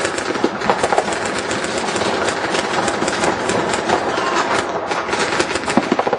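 Paintball markers firing in fast, overlapping strings: a dense, unbroken clatter of sharp pops, with balls smacking into bunkers.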